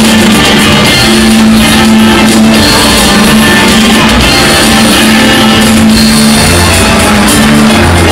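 Loud music with long held low notes, playing without a break.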